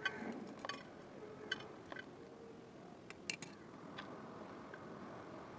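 Scissors snipping through the roots of a small bonsai root ball: a series of short sharp clicks, with three close together a little past three seconds in.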